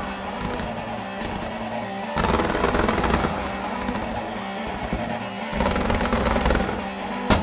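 Ground-level fireworks bursting and crackling over music with sustained low notes. The bursts swell about two seconds in and again a little after five seconds.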